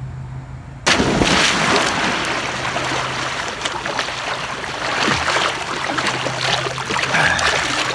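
Pool water splashing and churning as a person swims hard through it, starting abruptly about a second in.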